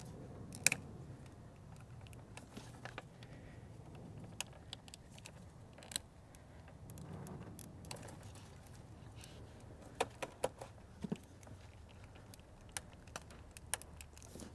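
Small irregular plastic clicks and rattles from hands working the quick-connect vacuum line fitting and connector of an EVAP canister purge solenoid, trying to pull it free. A few sharper clicks come close together about ten seconds in.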